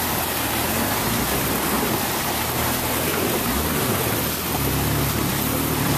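Jeep Wrangler driving through shallow floodwater on a dirt trail: a steady rush of water splashing around the tyres over the low running of the engine, whose note dips and rises about halfway through.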